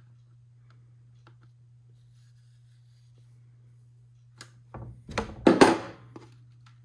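A few faint ticks, then, about four and a half seconds in, a short cluster of knocks and scraping as a wrench works the 11 mm nut on a battery clock movement's shaft against the wooden clock case.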